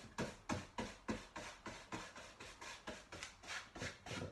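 Paintbrush stroking glaze back and forth across a stretched canvas, a soft scratchy swish about three times a second.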